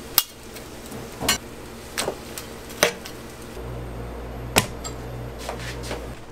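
Stainless-steel steam-table pans and a metal spatula knocking and clanking together as cooked onions are scraped into the pans and the pans are lifted and set down: about five sharp metal knocks, the loudest near the start and about two-thirds of the way through.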